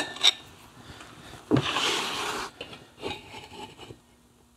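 Cylinder head of an Aermacchi 350 single being worked loose and lifted off the engine: a couple of light clicks, then about a second of metal scraping as it comes away, followed by a few faint clinks.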